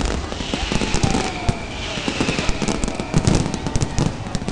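Aerial firework shells bursting overhead in a dense run of bangs and crackles, the loudest about three seconds in.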